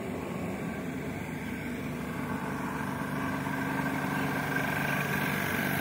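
A steady engine or motor hum that grows a little louder about halfway through.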